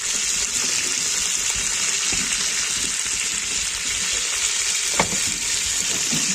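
Pieces of fish frying in hot oil in an aluminium pot, a steady sizzle, with a single sharp click about five seconds in.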